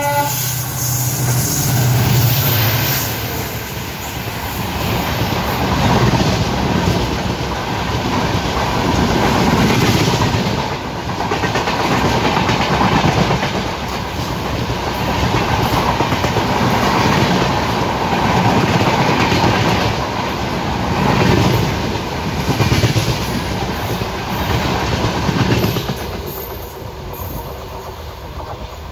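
An express train passes at speed on the next track: the drone of its WDP-4D diesel locomotive in the first few seconds, then a long run of LHB passenger coaches rushing by with a rhythmic clickety-clack of wheels over the rail joints, dying away near the end as the last coach clears.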